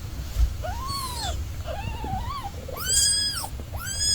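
Cat meowing four times in quick succession, each high-pitched meow rising and then falling in pitch, the third one the loudest.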